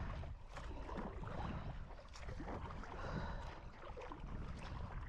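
Wind buffeting the microphone with water splashing and lapping around a kayak being paddled, with small splashes scattered through.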